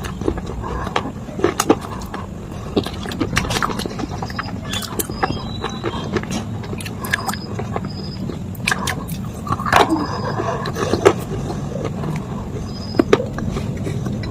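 Crunching and crumbling of dry baked clay and slate pieces: sharp, irregular cracks and crackles, with a few louder snaps, over a steady low background rumble.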